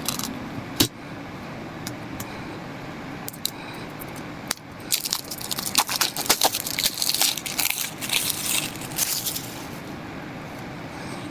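Product packaging being handled and opened by hand. A few sharp clicks come first, then about four seconds of dense crinkling and crackling.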